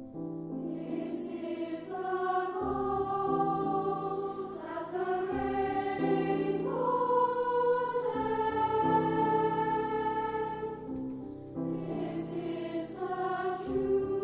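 Choir singing a song in held, smoothly moving notes, with piano accompaniment.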